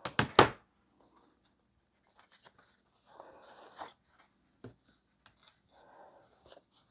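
Two sharp knocks, then soft, scattered paper-and-plastic rustling with a single click, as embossed cardstock is taken out of a plastic 3D embossing folder.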